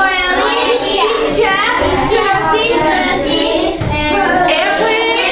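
A class of children's voices speaking together in a sing-song chorus, several voices overlapping.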